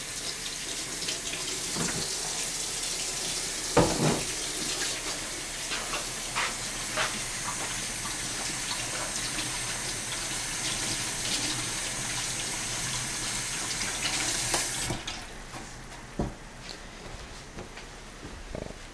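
Kitchen tap running into a stainless steel sink, with a few knocks of things handled under the water, the loudest about four seconds in. The water shuts off abruptly about fifteen seconds in, followed by a couple of fainter knocks.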